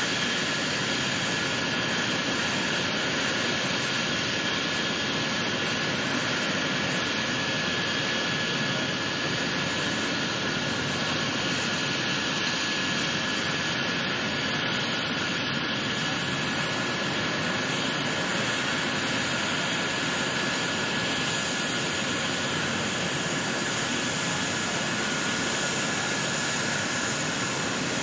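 Medical helicopter's turbine engine running steadily on the ground: a constant rushing noise with a faint steady whine, unchanging throughout.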